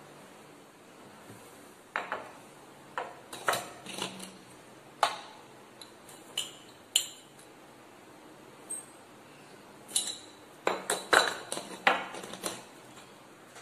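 Clinks and knocks of a glass coffee jar and its lid being handled beside a ceramic mug: a series of sharp taps starting about two seconds in, with a quick cluster of them near the end.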